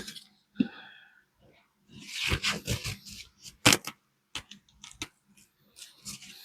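Hands being wiped clean: a rustling, rubbing wipe about two seconds in, then a few sharp clicks.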